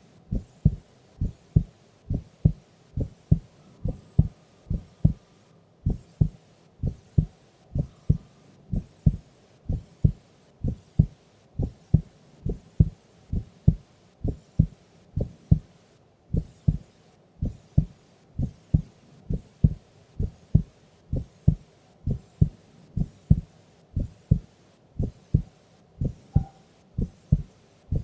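A sleeping woman's heartbeat: a steady lub-dub, each beat a pair of low thumps, coming about once a second at a resting pace.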